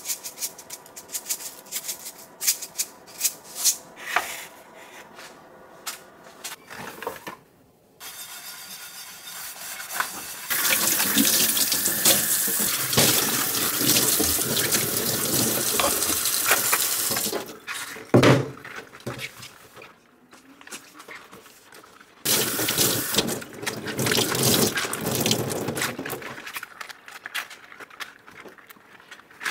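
Kitchen faucet running into a stainless steel sink in two long stretches, about ten seconds in and again after twenty seconds, during hand washing-up, with clatter and knocks between. The first several seconds hold light clicks and rattles.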